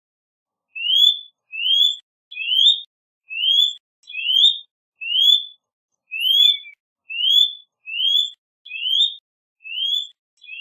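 Eurasian nutcracker calling: a steady series of about a dozen short notes, each rising in pitch, a little under one a second, beginning about a second in.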